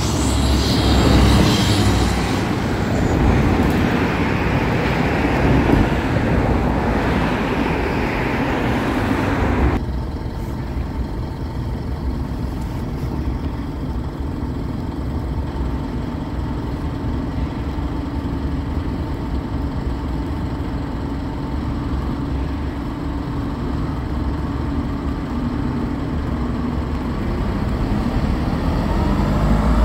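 Fire truck's diesel engine running: first passing on a street with traffic noise, then, after a sudden change at about ten seconds, a steadier, quieter engine sound as the tower ladder pulls into the firehouse bay, with the pitch rising near the end.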